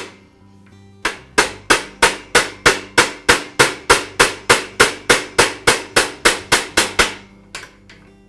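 Hammer tapping a steel roll pin through a Black & Decker Workmate crank arm into the vise's adjustment screw, driving it the rest of the way in. After a short pause there are about twenty quick, even taps at roughly three a second, which stop near the end.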